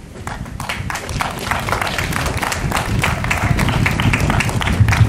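Audience applauding: scattered hand claps that start just after the opening and build within a second or so into steady applause.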